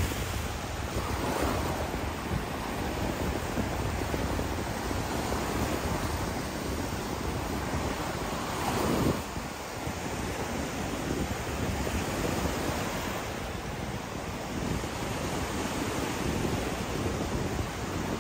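Surf washing onto a sandy beach in a steady wash, with wind buffeting the microphone. There is one louder surge about halfway through.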